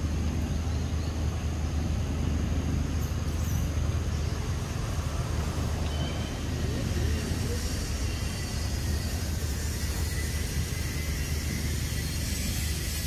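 Steady low rumble under an even hiss, with no distinct separate sounds standing out.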